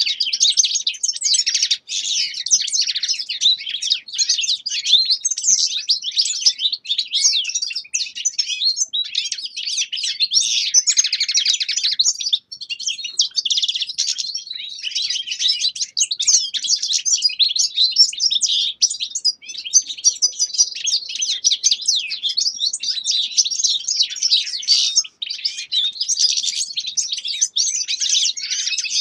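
Caged finches, goldfinches and siskins among them, singing a continuous, fast, high twittering song full of trills, with a few brief pauses.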